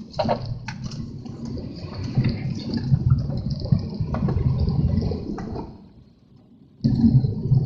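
Gusts of wind buffeting the microphone in heavy rain, a rough rushing rumble with a wet hiss on top. It drops away for about a second near the end, then gusts again.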